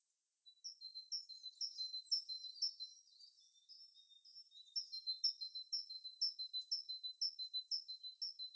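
Small birds chirping: a steady run of short, high-pitched notes, about two a second, starting about half a second in.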